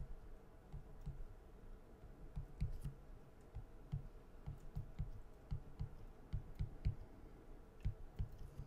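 Stylus tapping and scratching on a tablet screen as letters are hand-written, a series of faint, dull, irregular taps, about two to three a second.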